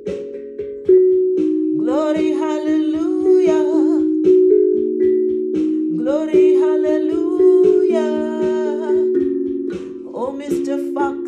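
Handpan played with mallets in a steady flow of strikes, its low notes ringing on and overlapping. Over it a woman's voice sings two long wordless phrases, rising and wavering in pitch.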